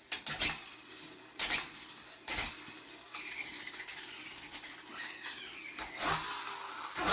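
Battery-powered toy truck playing an engine sound effect with gliding tones, loud enough to frighten a toddler. A few sharp knocks of the toys being handled come in the first couple of seconds.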